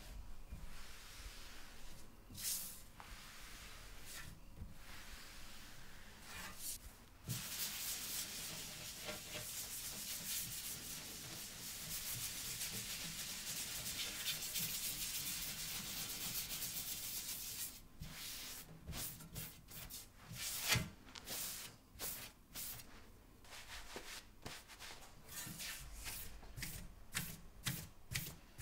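Cloth rubbing over an inked copper photogravure plate as it is wiped with wads of tarlatan to clear the ink from its surface. A steady rubbing hiss for about ten seconds in the middle gives way to quicker, separate wiping strokes, two or three a second, near the end.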